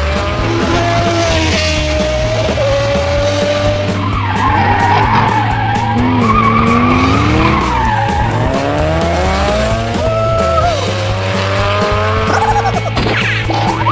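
Race-car sound: engine revs and tyre squeals that keep gliding up and down in pitch, with music underneath.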